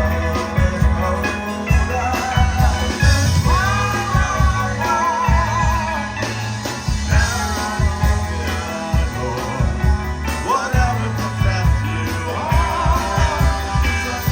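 Rock band playing a passage with no lyrics: a lead line sliding and bending with wide vibrato over steady bass and drums.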